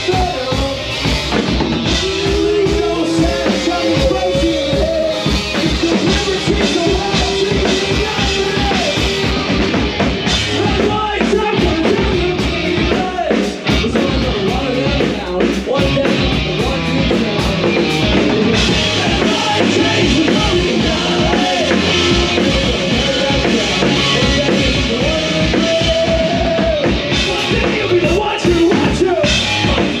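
Punk rock band playing live and loud: electric guitar, bass and a drum kit keeping a steady driving beat.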